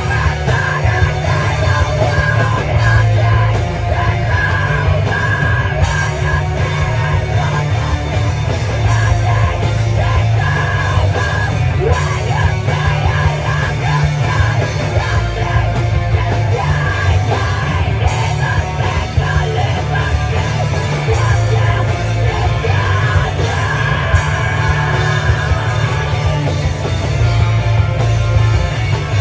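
A live rock band playing loud and without a break: drums, electric guitars and bass, with yelled vocals.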